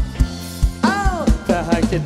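Live band music with a steady kick drum and bass line, and a singer's voice sliding up and down on a note about a second in.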